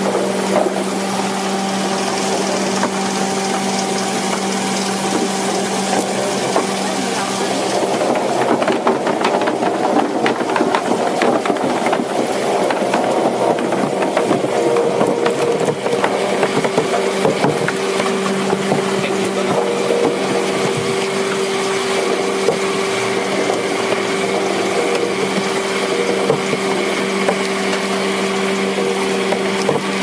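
Brush washing and peeling machine running with a steady motor hum and the rush of its rotating brush rollers, with irregular clatter and knocks as scrubbed water chestnuts tumble out into a plastic crate, busiest in the first half.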